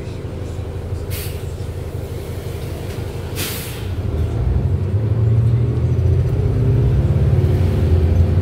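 2013 New Flyer XD40 diesel city bus heard from inside: the engine runs with a low rumble and two short air-brake hisses sound, about a second in and about three and a half seconds in. From about four seconds the engine grows louder and rises in pitch as the bus accelerates.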